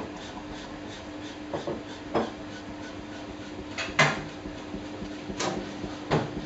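Samsung Eco Bubble washing machine running: a steady motor hum under about five irregular thuds as the drum turns and the wet laundry tumbles, the loudest about four seconds in.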